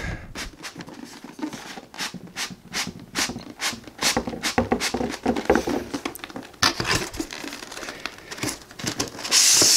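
Cardboard box being worked open by hand: a string of taps, scrapes and crinkles as a tight-fitting styrofoam inner case is pulled out of it. There is a louder stretch of sliding scrape near the end.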